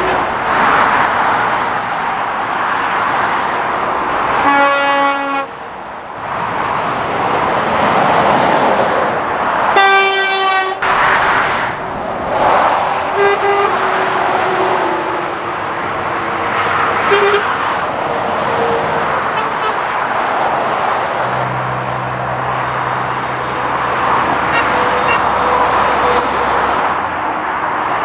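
Lorries and cars passing at speed, a steady rush of tyre and engine noise. A vehicle horn toots twice: once about four and a half seconds in, and again, higher and louder, about ten seconds in.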